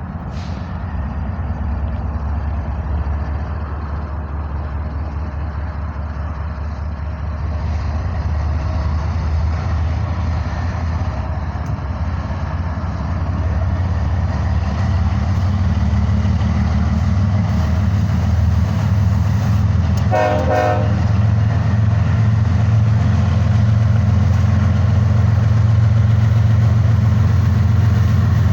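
BNSF GE ES44AC diesel-electric locomotives, with their 12-cylinder GEVO engines, running with a deep steady drone that grows louder. About two-thirds of the way through, a locomotive air horn gives one brief toot.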